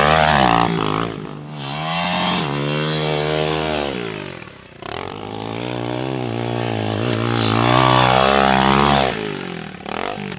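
Bored-out Yamaha pit bike engine being ridden hard, revving up and easing off over and over. The pitch climbs, falls back and climbs again, with short dips as the throttle is chopped about a second in, near the middle and near the end.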